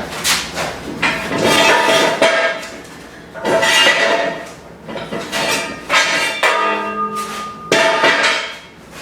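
Metal clanking and ringing: steel parts knocked or hammered together during assembly, in several loud bouts, each leaving a ringing tone.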